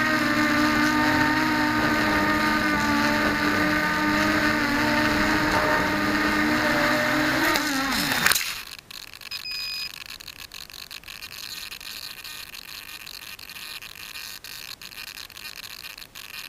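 Mini quadcopter's motors and propellers whining, the pitch wavering as the throttle changes. About eight seconds in the whine drops and cuts off at a sharp knock. After that, wind buffets and crackles on the microphone.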